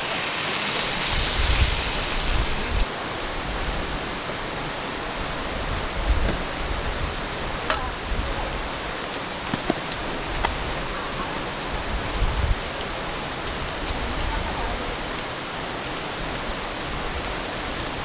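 Steady rain falling, a spread-out hiss that is louder and brighter for the first three seconds, with a few light clicks scattered through it.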